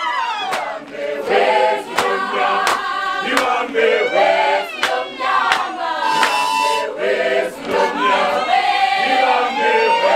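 A group of young women singing a Zulu song together in chorus, with sharp claps on a steady beat about every 0.7 seconds.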